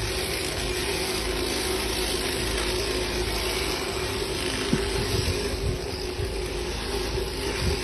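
Electric sheep shears running with a steady hum while shearing the fleece off a sheep, with a few faint knocks in the second half.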